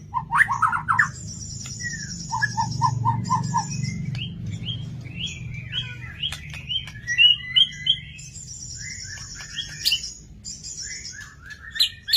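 White-rumped shama (murai batu) singing a varied, rich song: fast runs of notes, high rattling trills, a series of about six even notes and whistled phrases, one after another. A steady low hum lies underneath.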